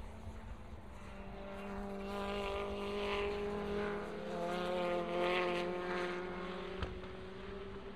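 Two Honda Civic WTCC touring cars pass one after the other through an S-bend, their turbocharged 1.6-litre four-cylinder engines climbing and falling in pitch with the throttle. The sound is loudest about three and five seconds in.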